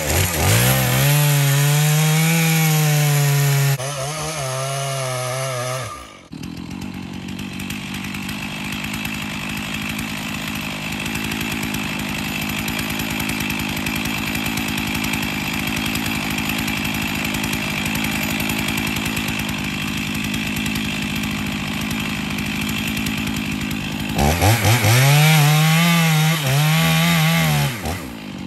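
Stihl chainsaw cutting into a large dead hemlock trunk at full throttle, its engine pitch wavering under load. After about six seconds it drops to a steady, quieter idle with the bar left in the cut, then revs back up to cut again about four seconds before the end.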